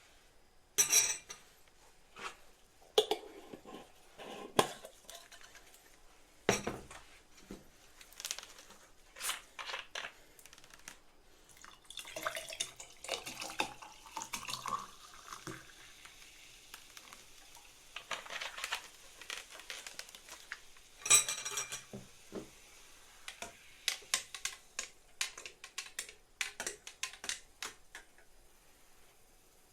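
Dishes and utensils clinking and knocking in a kitchen, in many separate sharp strokes, the loudest about a second in and near the 21-second mark. Between about 12 and 15 seconds in, a rising sound like liquid being poured.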